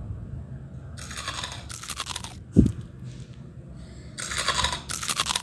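Crisp fried garlic sev crunching and crackling as it is crushed between the palms, in bursts about a second in and again near the end. A single dull low thump, the loudest sound, comes a little after halfway.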